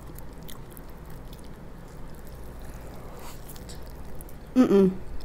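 Soft, faint squishing of a large cheeseburger being handled and bitten into, over a steady low room hum, with a brief vocal sound near the end.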